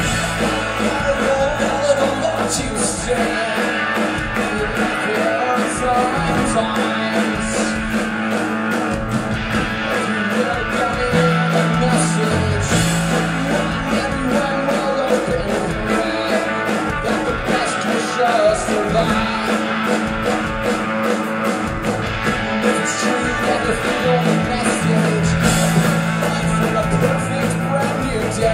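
Rock band playing live through a club PA, recorded from inside the crowd: electric guitars over held bass notes and a steady drum beat with cymbals.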